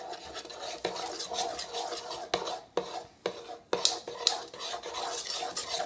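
A spoon stirring a thick, sticky mixture of glue, shaving cream and cornstarch in a bowl: steady scraping with irregular clicks of the spoon against the bowl, the sharpest about four seconds in.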